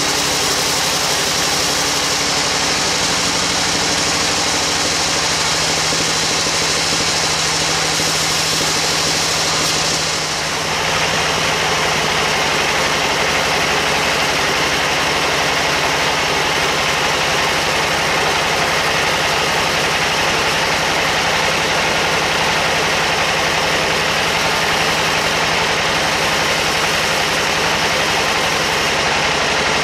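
Large band sawmill running with its blade cutting lengthwise through a big squared timber: a loud, steady machine hum with a hiss of the blade in the wood. About ten seconds in, the sound dips briefly and its tone changes, then it runs steadily again.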